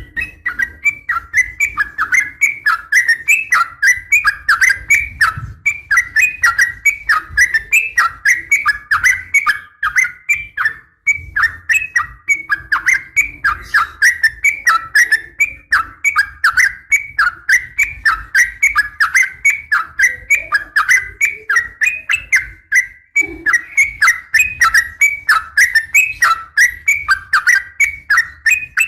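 Yellow-vented bulbul (trucukan) calling in a fast, unbroken chattering run of short notes, several a second, with brief breaks about 11 and 23 seconds in. This is the female's call to males, played to make caged birds answer.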